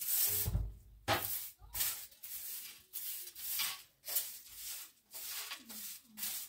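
Rough scraping strokes over a hard surface, repeated about one and a half times a second with short gaps between them.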